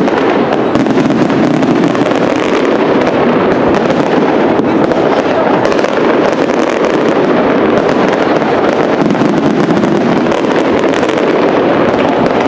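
Castillo fireworks display by Pirotecnia Global-Foc: aerial shells bursting in a dense, unbroken run of crackling and popping at a steady, loud level.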